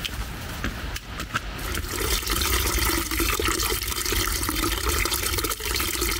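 Running water of a creek or cascade, a steady rushing hiss that swells about two seconds in and then holds.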